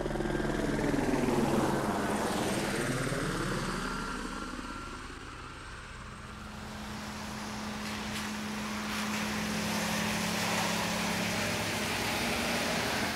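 An aircraft passing overhead: a rushing engine noise that swells and sweeps in pitch over the first few seconds, then settles into a steady rumble with a low hum.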